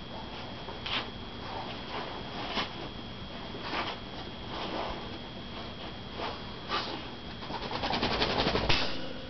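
Border Collie moving about just after its first bath: scattered scuffles and clicks, then a rapid rattling burst about a second long near the end.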